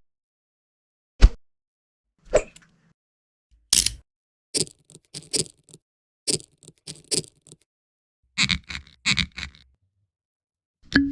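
A series of short knocks and scrapes with dead silence between them, beginning with one sharp knock about a second in and followed by clusters of quick scraping taps.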